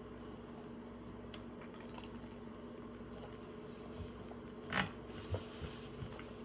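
A bite into a toasted hoagie-roll sandwich filled with chicken breast and mashed potato, close to the microphone. The bite is one loud crunch about three-quarters of the way through, followed by a few small wet chewing clicks, over a steady low hum.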